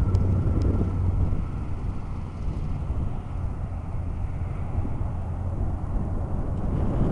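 Wind buffeting the microphone over the distant, fading whine and rumble of the MD-80's rear-mounted jet engines after landing. The engine's thin whine dies away in the first couple of seconds, leaving mostly wind rumble.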